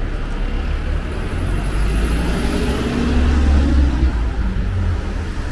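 City road traffic passing close by: a deep engine rumble that builds to its loudest about three and a half seconds in and then eases off, over a steady wash of street noise.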